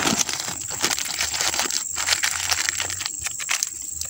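Thin black plastic bag crinkling and rustling as it is folded and wrapped around a branch by hand, with many small crackles that die down near the end.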